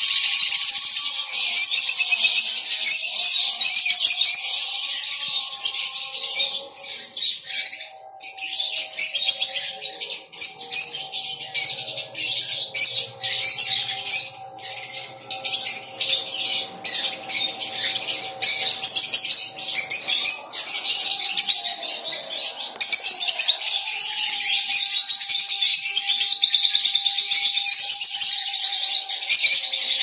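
A colony of caged peach-faced lovebirds chattering: a dense, continuous mass of shrill high chirps, thinning out with short gaps through the middle stretch.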